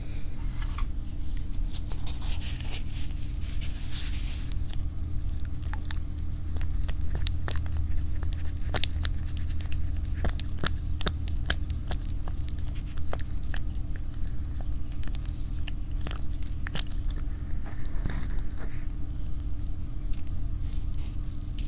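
Close-up ASMR trigger sounds at a 3Dio binaural microphone: scattered small clicks and crackles with a few soft rustles, over a steady low hum.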